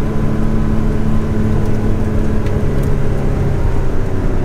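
The 1970 Porsche 911 S's air-cooled flat-six running steadily on the move, heard from inside the cabin with road noise. A steady tone in the engine note fades out a little past halfway.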